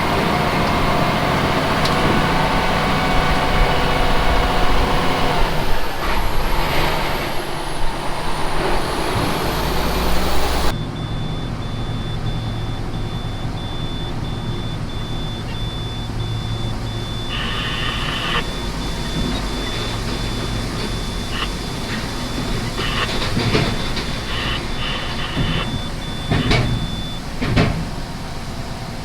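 Loaded grain truck's engine running while driving. About a third of the way in the sound cuts to a quieter, steadier engine hum, with a thin high steady tone and a few short bursts of beeping.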